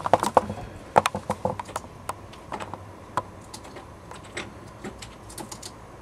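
A California scrub jay tapping with its bill and claws on hard surfaces: a quick, irregular run of sharp taps in the first two seconds, then scattered single taps.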